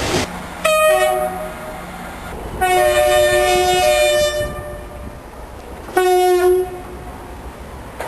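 A locomotive's two-tone horn sounding three times: a short blast, then a longer blast of about two seconds sliding between its high and low notes, then another short blast.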